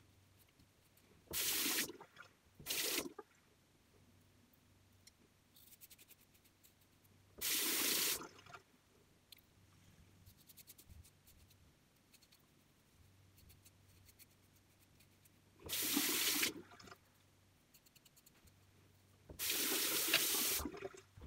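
Bathroom tap running in five short bursts, each from half a second to a second and a half long, as the safety razor is rinsed between strokes of a wet shave. Faint scratching of the blade through stubble can be heard between the bursts.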